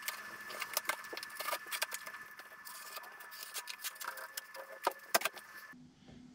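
Cardboard shipping box being pulled open by hand: scratchy rustling and crackling of the cardboard, with a couple of sharper snaps about five seconds in.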